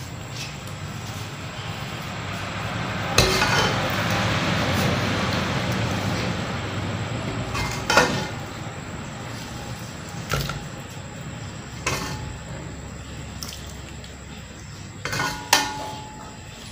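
Metal ladle clinking and scraping against an aluminium pot and a serving plate as kofta curry is served, with a wet sound of gravy being poured and stirred about three seconds in. Several sharp clinks sound throughout.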